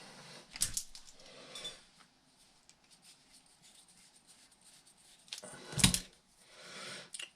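Light clicks and clatter of small RC shock parts and tools being handled on a workbench, with a few sharper knocks, the loudest about six seconds in.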